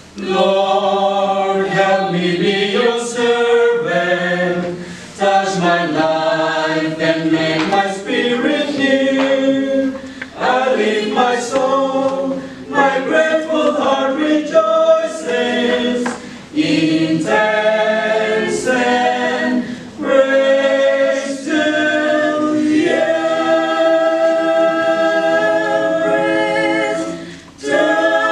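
Mixed choir of men and women singing a hymn in harmony, in phrases a few seconds long with short breaks between them.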